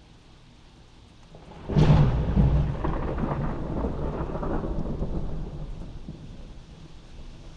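Thunderclap heard from inside a house during steady rain: a sudden crack about two seconds in, then a deep rumble that fades away over several seconds.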